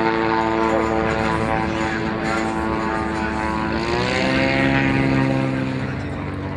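Propeller-driven seaplane's engine running with a steady droning note, which shifts in pitch about four seconds in and then eases slightly near the end.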